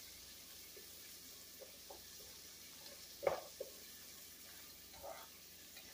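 Diced onions sizzling faintly as they sauté in oil in a soup pot, with a few soft knocks and scrapes of the stirring utensil against the pot, the loudest about three seconds in.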